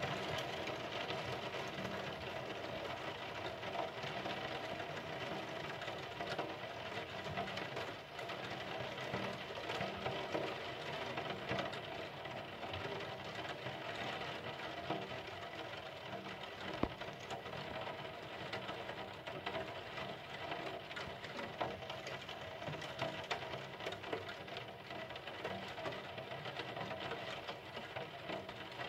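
Steady rain pattering, with a fine, rapid ticking of drops hitting a window and nearby surfaces. There is one sharper tap about seventeen seconds in.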